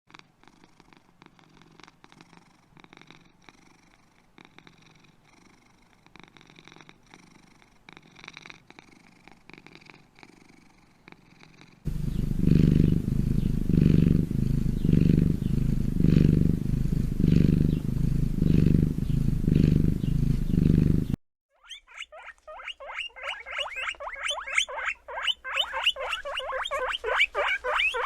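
A domestic cat purring loudly, in low pulses that rise and fall with each breath, from about 12 seconds in until a cut about 9 seconds later. Before it there are only faint, indistinct sounds; after it a small pet rodent gives a fast run of high squeaks.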